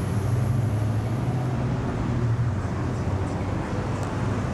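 Steady low rumble of a motor vehicle with even road hiss over it.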